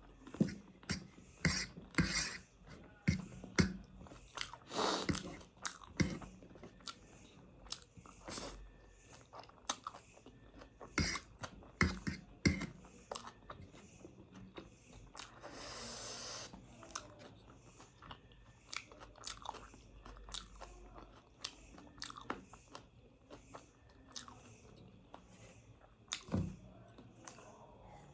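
Close-up mouth sounds of eating: chewing with many irregular crisp crunches and bites.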